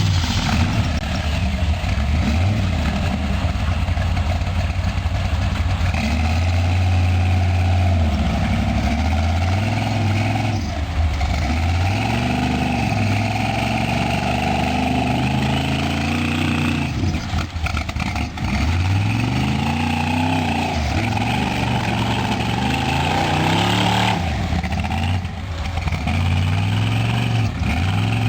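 Chevy V8 engine in a Jeep Wrangler revving up and falling back again and again, its pitch rising and dropping many times over.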